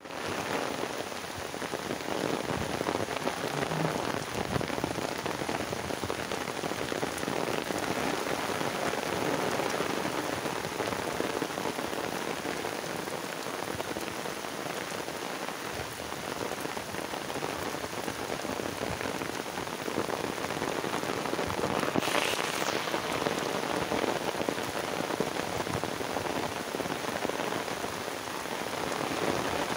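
Heavy rain falling steadily on grass, mud, trees and open water, a dense even patter, with one short louder swell about two-thirds of the way through.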